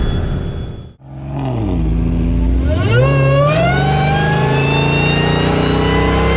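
A car engine fades out to a cut about a second in. Then a performance car engine comes in, dips briefly in pitch and accelerates hard, its note climbing steadily.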